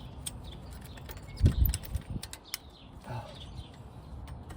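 Small metallic clicks and clinks as the pad retaining pins are worked out of a Dodge Charger's rear brake caliper, with a dull thump about a second and a half in and a lighter knock near three seconds.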